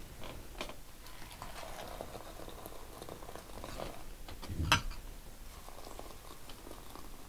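Hot water poured in a steady stream from an electric kettle into bowls of dry noodles and rice, with a single sharp knock a little past halfway.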